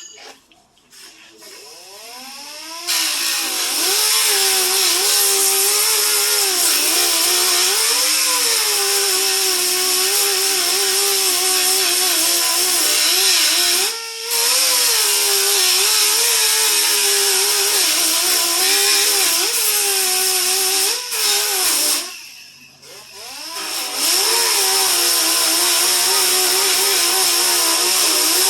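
A handheld power tool working a car body panel during dent repair: a loud, hissing whine whose pitch wavers and dips under load. It cuts out briefly about halfway through, stops again a little later and restarts near the end.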